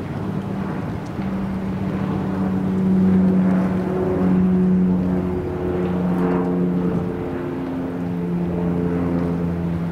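Engine of a small harbour work boat motoring at low speed: a steady low hum that shifts slightly in pitch, over wind noise.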